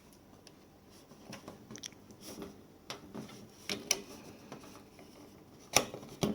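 Small handling clicks and rustles of a lithium battery cell being fitted to a charger and its cable plugged in, with two sharper clicks near the end.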